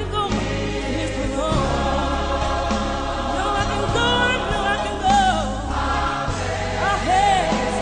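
Gospel choir singing with wavering held notes over sustained low instrumental notes that change every second or two.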